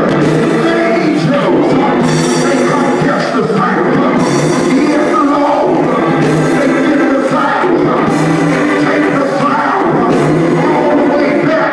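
Live church music with singing, steady and loud, a low note coming back about every two seconds.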